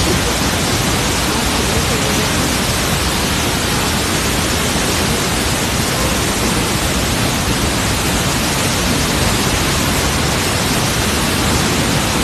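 A loud, steady rushing noise, even across all pitches, with no tone or rhythm in it.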